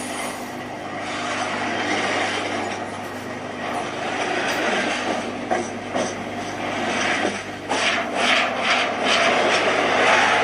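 Train running along the track: a steady engine hum under a rushing, rumbling noise, with a few knocks and clatter about three-quarters of the way through.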